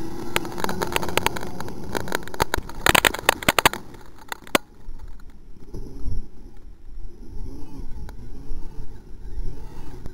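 RC trophy truck on paddle tyres running hard, spraying dirt and gravel that pelts the camera with a dense crackle for the first four seconds or so. The truck's motor is then heard farther off, rising and falling in pitch as it drives and turns.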